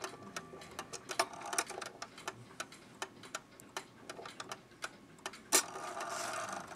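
Ticking of a c1915 New Haven Tambour No. 7 mantel clock movement as its pendulum swings, with one louder click about five and a half seconds in.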